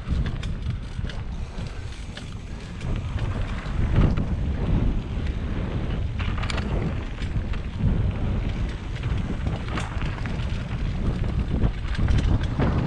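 Mountain bike riding down a dirt flow trail: wind rushing over the camera microphone with a steady low rumble from the tyres, and frequent short clicks and rattles from the bike.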